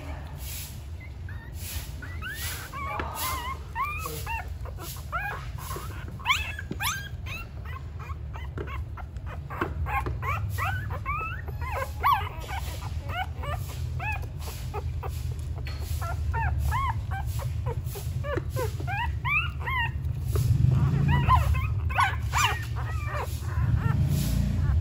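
Newborn puppies nursing at their mother, letting out many short high squeaks and whimpers, one after another. A low rumble runs underneath and grows louder near the end.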